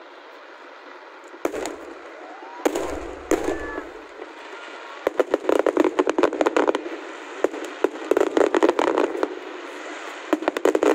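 A fireworks display: a few separate booming shell bursts in the first few seconds, then rapid volleys of crackling reports in bunches.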